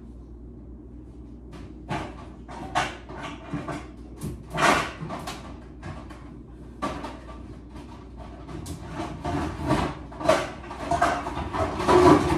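Metal baking pans and cupboard doors clattering and knocking as pans are rummaged through in a kitchen cabinet: a string of irregular knocks that gets busier and louder from about nine seconds in.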